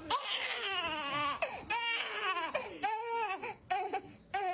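Newborn baby crying: about four short cries, each rising and falling in pitch, with brief breaths between, then a short lull near the end.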